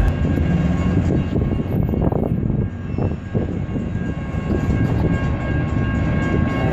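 Freight train led by EMD SD40-2 and SD60 two-stroke diesel locomotives approaching from a distance, heard as a steady low rumble.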